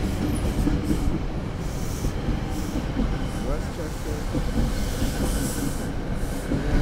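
Passenger train rolling past a station platform, a steady rumble of wheels on the rails.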